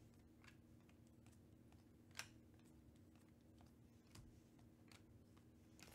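Near silence: faint clicks of trading cards being slid off a stack in the hand, one a little louder about two seconds in, over a faint steady hum.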